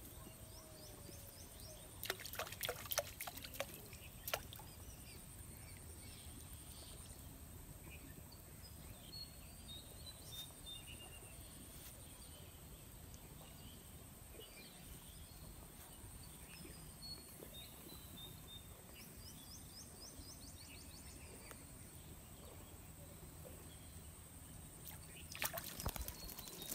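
Faint outdoor ambience with a steady high-pitched hum and a few soft chirps. Two short clusters of clicks and rustling come about two seconds in and near the end; the second comes as a fishing rod is swung up.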